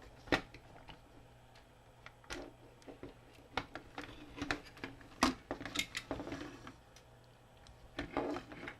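Hard plastic clicking, tapping and scraping at irregular moments as the screwed-apart plastic shell of a toy robot action figure is handled and pried open, with sharper clicks near the start and about halfway through.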